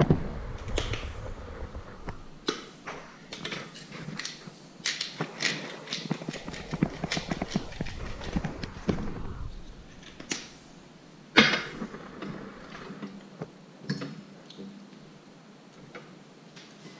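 A black pepper grinder being twisted by hand, giving a quick run of crunching clicks for several seconds. About eleven seconds in there is a single sharp knock, followed by a few lighter scattered clicks.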